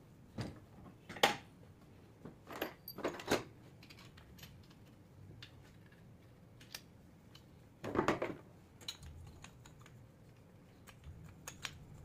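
Scattered sharp metal clicks and taps of small parts and fingers working on the exposed rear end of a 24-volt alternator, the rectifier and brush-holder area, with the loudest click about a second in and a short cluster of knocks about eight seconds in.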